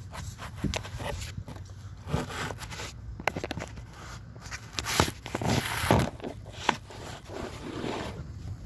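Handling noise from a hand on the phone: rubbing and scraping with scattered sharp clicks, loudest around five to six seconds in.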